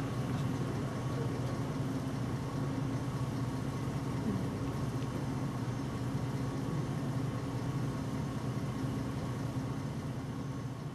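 Car engine idling steadily: a low, even hum with a faint higher whine over it.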